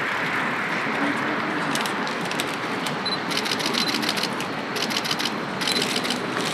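Rapid camera shutter clicks from several cameras firing in bursts, starting about two seconds in, over a steady hiss of street noise. A few short high beeps sound among the clicks.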